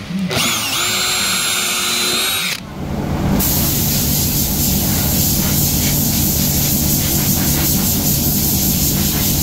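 A power tool whines up to speed and runs for about two seconds, then stops. Right after, a second steady machine with a low hum and a hiss starts and keeps running.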